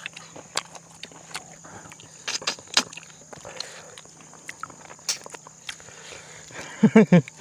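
Close-up eating sounds: scattered crunches, clicks and mouth smacks from people chewing food, over a steady high insect drone. A short burst of voice near the end is the loudest moment.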